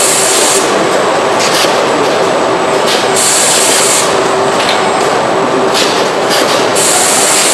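Car body-shop production-line noise: a steady, loud mechanical din with repeated short, high hisses every second or two, the longest lasting about a second, while a robot dispenses a sealant bead onto body panels.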